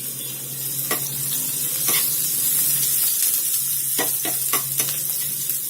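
Green chillies and ginger sizzling in hot oil in a pan, being stirred. Several sharp clicks of the spoon against the pan, most of them in the second half, over the steady sizzle.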